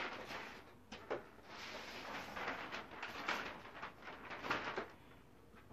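Brown wrapping paper rustling and crinkling as it is pulled off a framed picture, in uneven scrunches that fade out about five seconds in.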